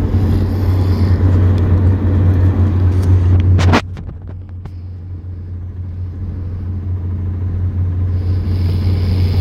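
Steady low rumble of a moving car heard from inside the cabin. About four seconds in there is a sharp click, after which the noise drops and slowly builds back up.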